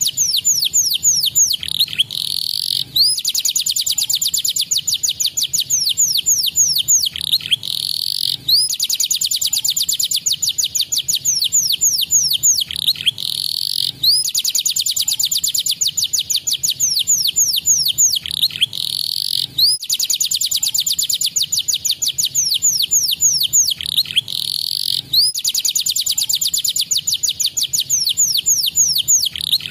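A domestic canary singing long, rapid, high-pitched trills of tightly packed notes, broken by falling whistled sweeps. The same song phrase comes round about every five to six seconds.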